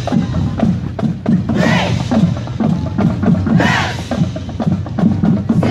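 Marching band drumline playing a steady marching cadence on drums, struck in an even, quick beat.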